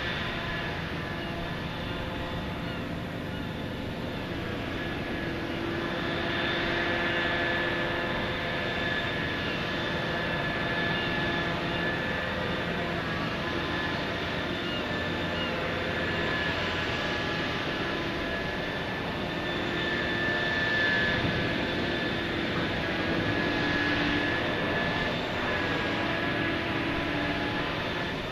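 Heavy dredging machinery running steadily, a diesel drone with a high whine over it that swells and eases several times, as from a large hydraulic backhoe at work.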